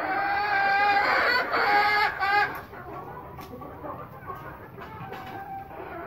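Hens calling: drawn-out pitched calls in the first two and a half seconds, one with a wavering trill, then fainter clucking.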